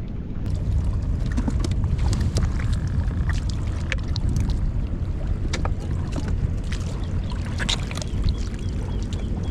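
A boat's motor running with a steady low rumble, with scattered clicks and knocks over it.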